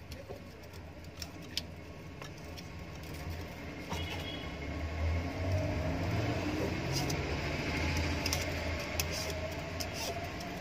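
Enamelled copper winding wire being worked by hand into the slots of a motor stator, with scattered small clicks and rustles. A low engine-like rumble swells from about four seconds in and eases near the end.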